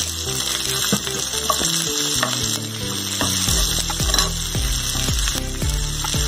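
Onion and capsicum sizzling in hot oil in a nonstick pan, stirred with a perforated steel spatula that clicks and scrapes against the pan. Background music plays under it, with a steady thumping beat from about halfway in.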